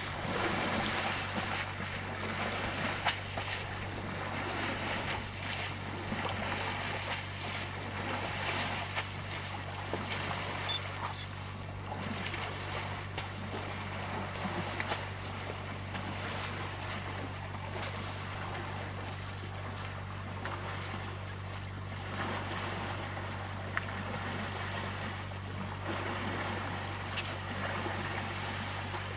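An idling engine hums steadily and low, under an even wash of wind noise with scattered faint clicks.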